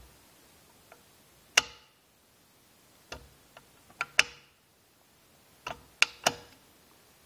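Sharp metallic clicks and clacks from the Craftsman 109.21270 lathe's forward-reverse lever and end gears as the lever is shifted by hand and the gears mesh. They come singly and in small clusters: one loud click about a second and a half in, several around the middle and a few more near the end.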